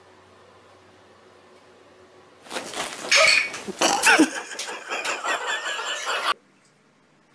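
A pet animal's loud, noisy outburst of cries, starting about two and a half seconds in, lasting about four seconds and cutting off suddenly.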